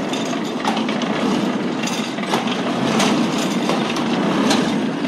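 Old hand-cranked, belt-driven coal forge blower being turned, its gears and fan giving a steady whirring clatter with scattered ticks as it pushes air into the firepot. The blower is working.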